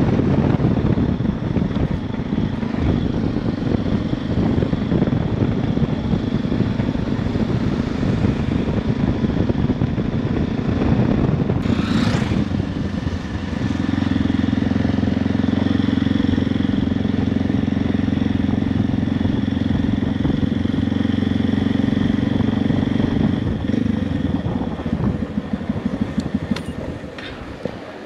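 Motorcycle engine running at road speed under a constant rush of wind and road noise. Its note steadies and grows stronger for about ten seconds from the middle, with a brief whoosh just before. The sound eases off near the end.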